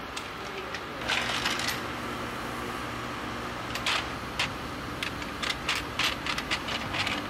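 Plastic valve cover of a BMW 528i's 3.0-litre straight-six being set down and seated on the cylinder head: a series of short plastic clicks and knocks, a cluster about a second in and more over the last three seconds.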